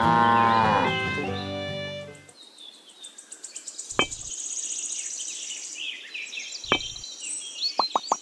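A cow mooing over background music for the first two seconds. Then faint high chirping follows, with two sharp pops, and near the end a fast, even run of clicks begins.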